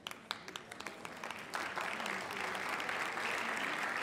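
Audience applauding: a few scattered claps that swell into full, steady applause about a second and a half in.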